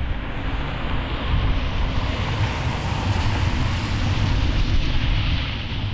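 Jet airliner passing by with its engines running: a low rumble under a rushing hiss that swells to its loudest about three and a half seconds in, then fades.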